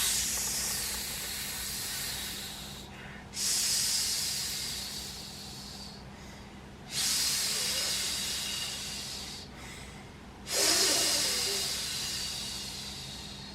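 A person imitating a hissing snore: four long airy hisses, each starting suddenly and fading away over two to three seconds. The last one begins with a short grunt.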